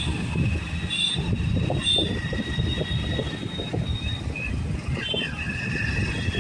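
Hero Splendor's single-cylinder four-stroke engine running, a steady low rumble with faint high whining tones over it.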